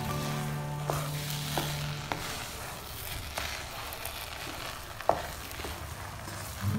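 Rice sizzling in ghee in a nonstick pot as a wooden spatula stirs it, the spatula knocking against the pot a few times, sharpest about five seconds in.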